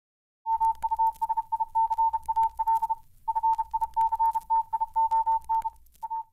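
Morse code beeping: a single high tone keyed on and off in short and long pulses, with static crackle and a low hum beneath. The keying pauses briefly about three seconds in.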